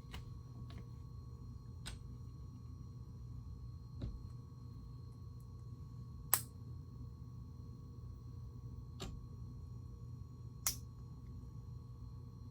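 About six short, sharp clicks of plastic Lego pieces being handled and fitted together, the loudest halfway through and another near the end, over a low steady hum.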